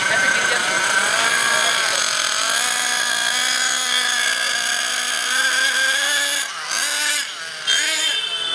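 Nitro RC truck's small glow engine running at a high-pitched buzz, its pitch rising and falling with the throttle. The sound drops away twice near the end as the throttle is let off, then comes back higher.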